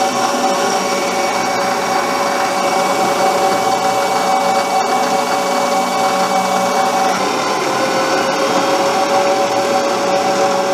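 Small metal lathe running with a steady whine as its cutting tool turns down a steel rod into a small sleeve.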